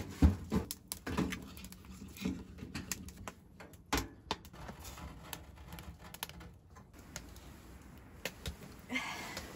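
A small steel wood stove being loaded and shut for the night: split firewood knocking against the firebox, then the stove door closed with a sharp knock about four seconds in. Scattered clicks run through, as the door's air control is turned.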